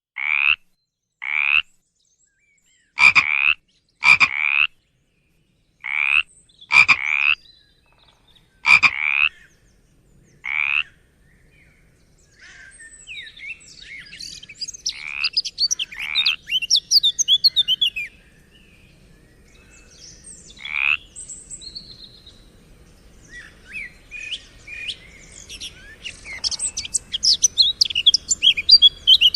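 Frogs croaking: a string of loud, separate croaks, about ten in the first eleven seconds, then a dense chorus of quick, higher chirping calls over a faint hiss.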